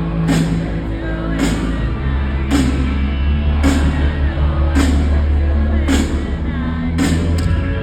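Live band music with a steady drum beat about once a second over a sustained bass, and the crowd's voices singing and shouting along.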